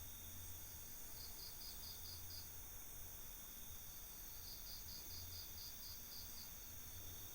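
Crickets and other night insects: a high chirp repeated about five times a second in two runs of several chirps, over a steady high-pitched insect drone, with a faint low hum underneath.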